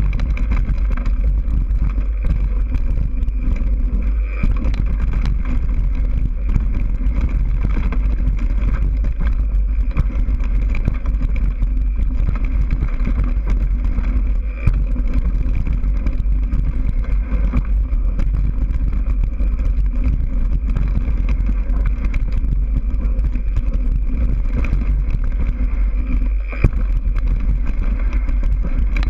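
Steady, deep wind rumble buffeting an action camera's microphone as a mountain bike descends fast, with the bike rattling over a rough dirt trail as many small ticks.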